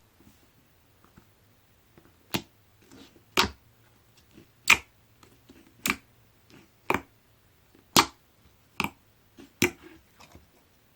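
Orange jiggly slime being pressed and worked by hand, giving sharp, loud pops about once a second, about eight in all, with quieter squishing between.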